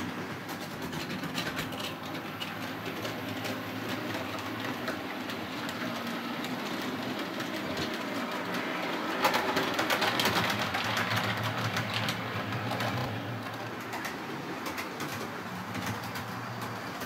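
Model train running on layout track: a steady low motor hum under quick clicking of the wheels over rail joints, louder for a few seconds near the middle as the train passes close.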